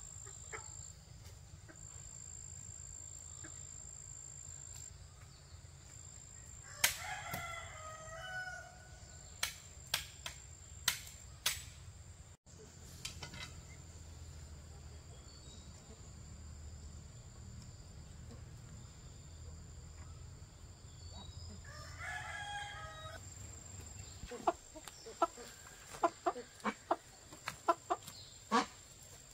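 A rooster crows twice, once about a quarter of the way in and again about three quarters through, each crow lasting about a second and a half. Sharp knocks come between the crows and in a quick run near the end.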